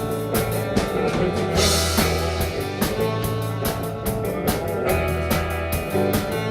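Live rock band playing an instrumental passage between sung lines: guitar and bass over a drum kit keeping a steady beat.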